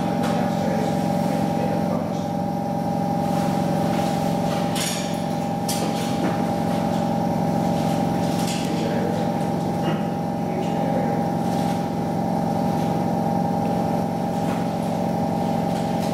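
Steady, muffled machine hum with a constant droning tone, heard through glass, with a few faint clicks scattered through it.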